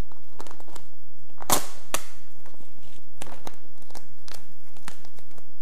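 Sheet of white carbon-fiber vinyl wrap film crackling and snapping as it is handled and peeled up from a motorcycle plastic panel to be re-stuck. Irregular sharp crackles, the loudest about a second and a half in.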